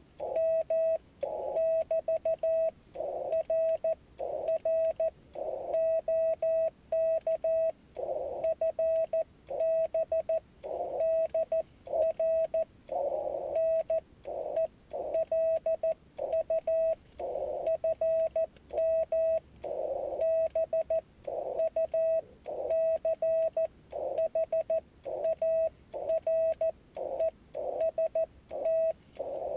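Morse code (CW) sent slowly, heard from a Yaesu FT-817D transceiver: a single steady mid-pitched tone keyed on and off in dots and dashes, with a little hiss around each element.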